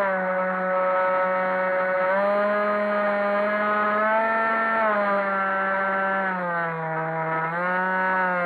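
Multiplex EasyStar 3 RC plane's brushless electric motor and pusher propeller whining in flight, heard from on board. The pitch steps down and up several times as the throttle changes: up about two seconds in, down twice later, and up again near the end.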